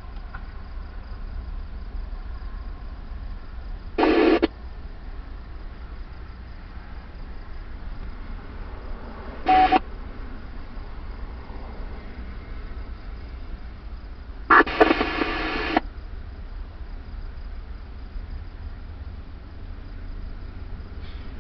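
Emergency scanner radio between transmissions: a steady hiss and hum broken by three short bursts of squelch noise as radios key up briefly. The bursts come several seconds apart, and the last is the longest, at about a second.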